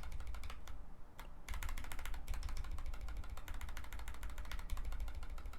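A linear mechanical keyboard switch, a frankenswitch with mixed Gateron ink and Cherry nylon housing parts and a black stem, pressed rapidly over and over. It makes a fast stream of clacks, with a brief pause about a second in.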